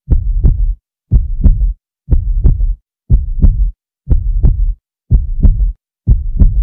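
Heartbeat sound effect: a loud, low double thump about once a second, seven beats, with dead silence between them.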